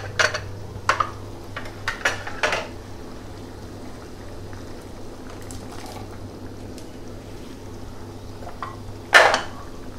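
Thick spinach purée bubbling in a steel pan, with several wet pops in the first few seconds over a steady low hum. A single sharp clatter near the end is the loudest sound.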